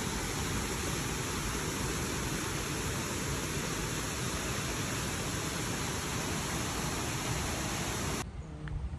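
Steady rushing noise that cuts off abruptly about eight seconds in, giving way to quieter sounds with a low hum.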